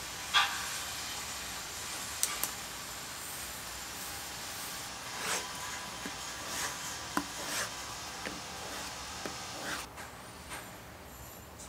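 Hand-tool workshop sounds over a steady hiss: a paper pattern and leather strips handled on a cutting mat, then a knife blade drawn across a leather strop several times, with scattered light taps and rubs.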